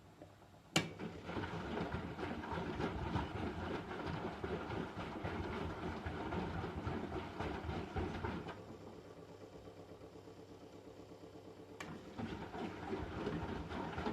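1997 Eurotech EW 450 washing machine drum tumbling. A sharp relay click about a second in sets the motor running and the drum turning for about seven seconds; after a quieter pause, another click near the end starts it turning again.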